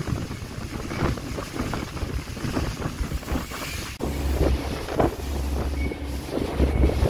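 Wind buffeting the microphone on a boat's deck in gusts, over churning water and the boat's engine. About four seconds in, a steady low engine drone comes up under the wind.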